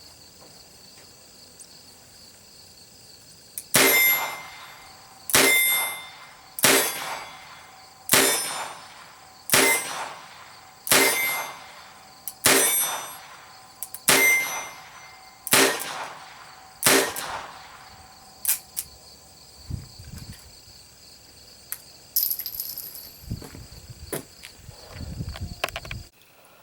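Ten .22 LR shots from a Ruger GP100 revolver, fired at an even pace about a second and a half apart, which empties its ten-shot cylinder. Each shot has a short metallic ring after it. Softer clicks and handling noises follow.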